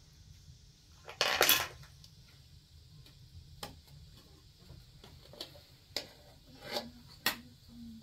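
Aluminium cooking pot and its lid clattering as raw chicken pieces are handled into it: a loud half-second metal clatter about a second in, then a few sharp clinks.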